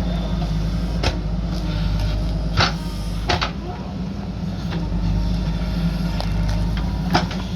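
JCB backhoe loader's diesel engine running steadily, with sharp clanking knocks about a second in, twice near the middle, and once near the end.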